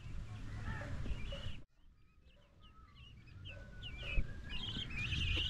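Small birds chirping over and over, above a low rumble. The sound drops out suddenly for about a second after a second and a half, then the chirping comes back busier.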